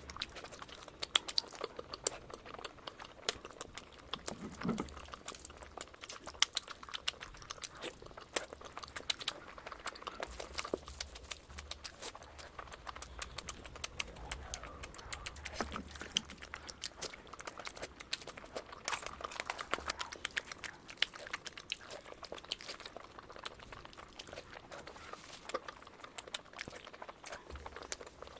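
Close-up eating sounds of a person chewing mutton fat curry with rice: a steady run of many small, sharp, wet mouth clicks and smacks.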